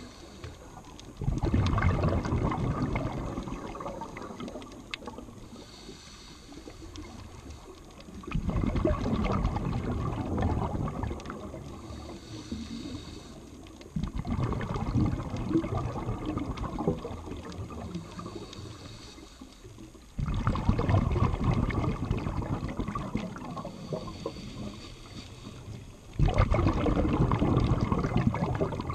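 Scuba diver breathing through a regulator underwater: a loud rush of exhaled bubbles about every six seconds, five times, each fading away, with a faint hiss of the inhale in between.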